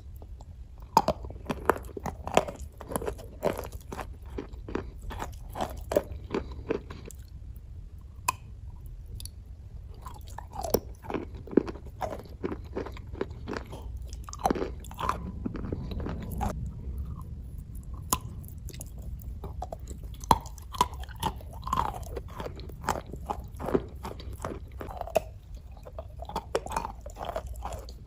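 Close-up crunching bites and chewing of a slab of paste-coated edible clay: many irregular sharp crunches, several a second, over a low steady hum.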